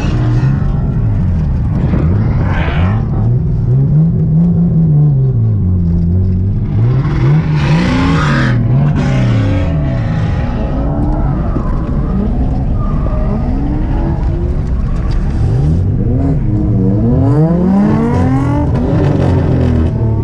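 Turbocharged Nissan RB straight-six in an R32 Skyline revving up and down over and over, running rough. A burst of hiss comes about eight seconds in. The owner traces the trouble to the main intake pipe coming loose at the throttle body, where cheap worm clamps had stretched.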